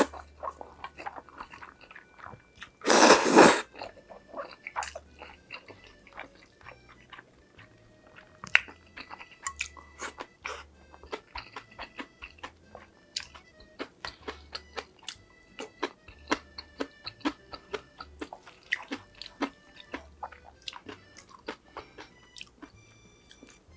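Close-miked eating: one loud crunchy bite about three seconds in, then steady chewing with many small crisp clicks and crunches. Faint background music with steady tones underneath.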